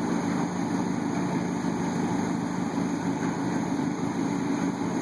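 Engine running steadily at idle, an even low hum.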